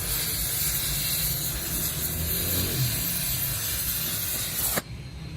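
Steady hissing noise with a low hum beneath it, cutting off abruptly near the end.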